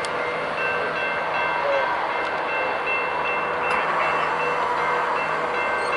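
Union Pacific double-stack container freight train approaching, led by a diesel locomotive: a steady, loud rumble of engine and wheels on rail, with faint steady high tones over it.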